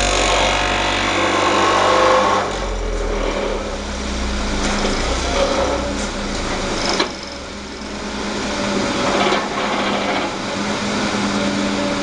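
Excavator-mounted vibratory hammer (vibro sinker) running steadily as it drives a steel sheet pile into the ground, a dense mechanical buzz over the excavator's engine. A short sharp knock about seven seconds in.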